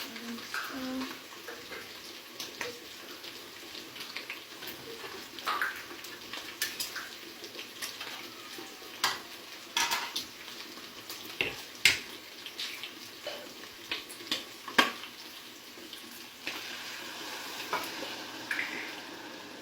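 Metal kitchen utensils and cookware clinking and knocking: a string of irregular sharp clanks, thickest in the middle, the loudest about twelve seconds in.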